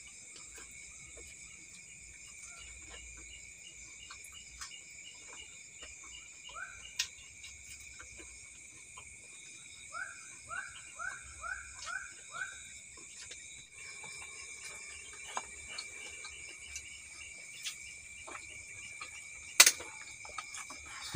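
Steady chorus of crickets and other night insects, with a run of six quick chirping calls about ten seconds in. Small clicks of eating and the plate come through, and there is one sharp click near the end.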